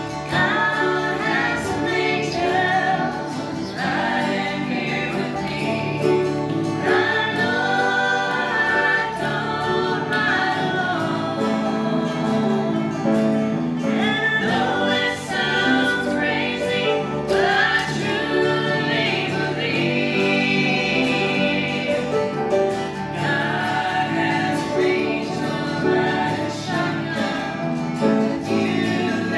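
A family gospel group singing together, several voices in harmony, with instrumental accompaniment.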